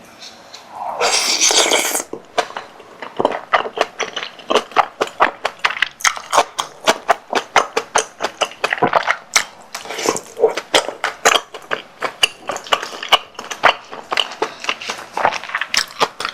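Close-miked mukbang eating: a mouthful of tteokbokki with sausage and cabbage chewed wetly, with many quick smacking clicks several times a second. A loud noisy burst comes about a second in.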